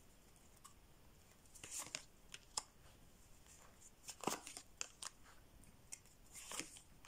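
Tarot cards being handled: quiet, scattered rustles and soft clicks of cards sliding and being laid down, a few short sounds spread over several seconds.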